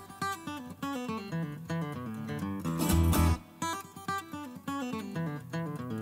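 Background music: an acoustic guitar playing a plucked melody, with deeper bass notes about halfway through.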